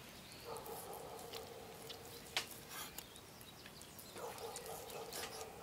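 A dog whines twice, each whine a drawn-out note of about a second and a half. In between, a kitchen knife gives a few light taps on a wooden cutting board as it slices meat.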